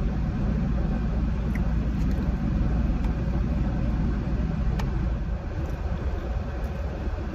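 Steady low rumble of an idling car with its air conditioning running, heard from inside the cabin.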